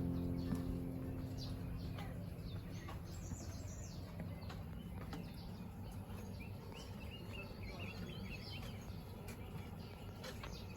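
Background piano music fading out over the first couple of seconds, then outdoor ambience of small birds chirping over a low, steady background noise.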